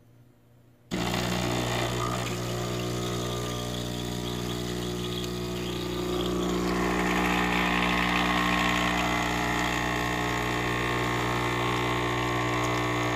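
DeLonghi Dedica EC680M espresso machine's 15-bar vibratory pump switching on suddenly about a second in and buzzing steadily as it brews a shot of espresso. The buzz grows louder and brighter about six seconds in.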